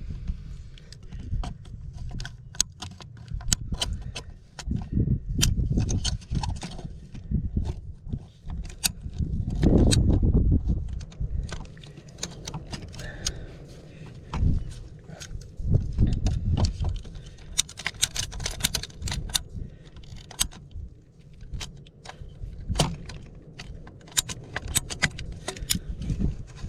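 Hand tools clicking and scraping on metal in many sharp, irregular clicks while an old crimp ring is worked off a 1-inch PEX fitting. A low rumble runs underneath.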